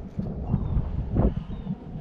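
Wind buffeting the microphone, an uneven low rumble, with one short knock a little past a second in.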